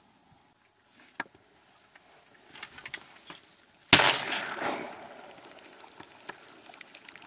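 A single shotgun blast about four seconds in, with a trailing echo that dies away over about a second. A few quieter clicks come before it.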